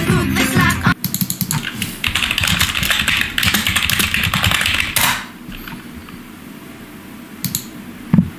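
Computer keyboard typing in quick runs of keystrokes, stopping about five seconds in, followed by two sharp clicks near the end.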